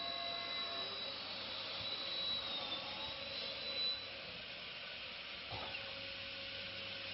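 Automatic aluminium cleat drilling, tapping, punching and cutting machine (MDTP-400) running: a steady hiss with a high whine that fades out about four seconds in. A single knock comes about five and a half seconds in, followed by a steady lower hum.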